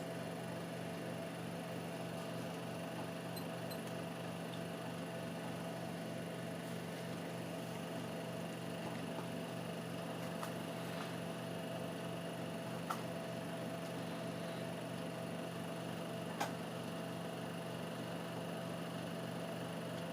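Steady low electrical hum with a few fixed tones, from a running laptop, and two single sharp clicks a few seconds apart past the middle.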